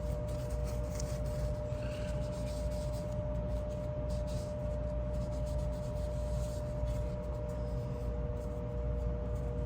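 Faint rubbing and scratching as small folding-knife parts are handled and wiped, over a steady background hum.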